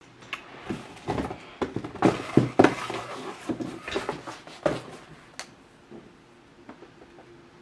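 Knocks, bumps and short scrapes of a cardboard shipping box being picked up and handled, stopping a little after halfway.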